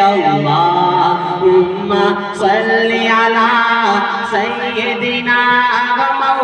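A man's voice singing a naat into a microphone, drawing out long melodic notes that waver and glide in pitch without breaking into words.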